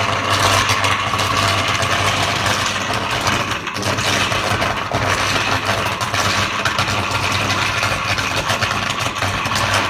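Large Caterpillar diesel generator engine running loud and steady while fire burns out of its air cleaner housing: an engine-room fire that the title puts down to an electrical short.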